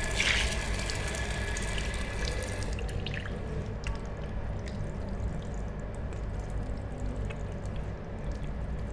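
Water running from a sink tap into a ceramic washbasin and splashing over hands rinsing under the stream, a little brighter in the first two seconds and then a steady hiss.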